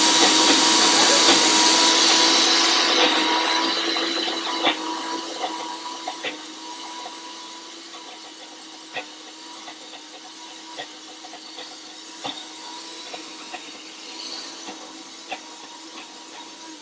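Nutri Ninja high-speed blender motor running steadily through a thick cashew hummus mixture. It is loud for the first few seconds, then much quieter, with scattered clicks, and it stops right at the end.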